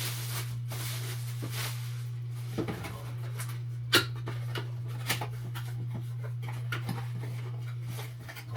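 Scattered light clicks and knocks of plastic coffee-machine parts and packaging being handled, with a sharper knock about four seconds in, over a steady low hum.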